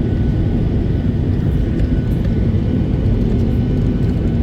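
Steady low rumble of an airliner's engines and airflow heard from inside the passenger cabin, even and unchanging, with a faint steady hum on top.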